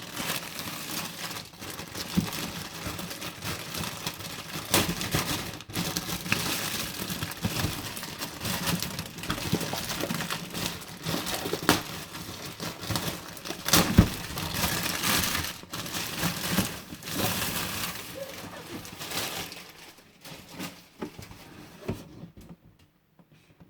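Packaging crinkling and rustling, with scattered clicks and knocks, as a boxed 1:18 diecast model car is unwrapped; it thins out and stops after about twenty seconds.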